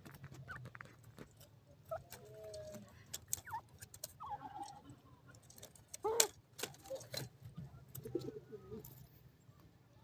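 Grey francolins giving soft, short clucking calls and little pitch glides while foraging, with one louder call about six seconds in. Scattered sharp clicks of pecking in the sandy soil come between the calls.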